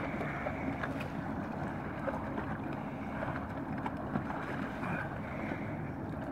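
Wind rumbling steadily on the microphone over water sloshing and thin lake ice crunching as a person in a drysuit heaves himself out of a hole onto the fragile ice edge. There are a few sharp cracks of breaking ice about one, two and four seconds in.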